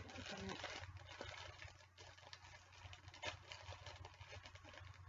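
Faint crinkling and rustling of a small cardboard Funko blind box being opened by hand, most busy in the first second, with a couple of light clicks later on.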